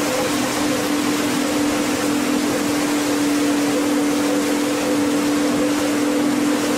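Boat engine running at a steady cruise, heard aboard: a constant low drone under a steady hiss of water and wind.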